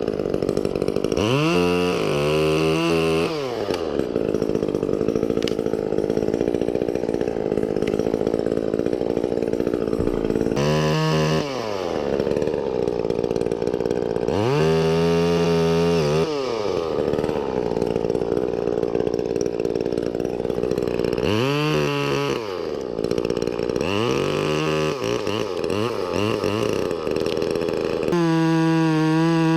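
Chainsaw running, revved up and let fall back about six times, with steadier running under load in between.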